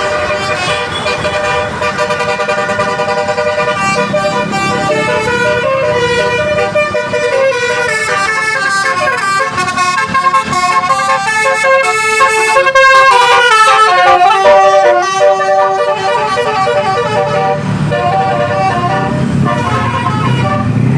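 Bus 'telolet' multi-tone musical horn playing a melody, its notes stepping up and down, loud and continuous, with a low rumble under it near the end.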